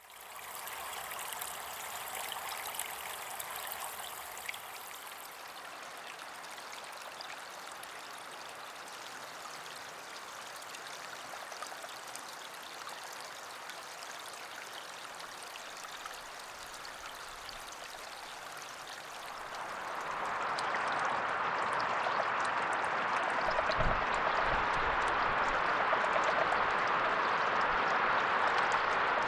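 Steady rush of flowing water that grows louder about two-thirds of the way in, with quiet Japanese brown frog calls (Rana japonica) faint beneath it.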